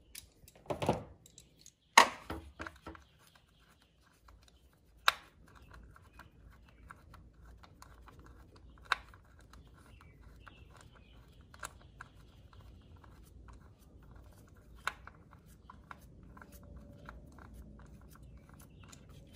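Hand tools clicking and knocking on engine parts as a 10 mm socket with a swivel is worked on an ignition coil bolt: a few sharp knocks in the first five seconds, then a run of small irregular clicks.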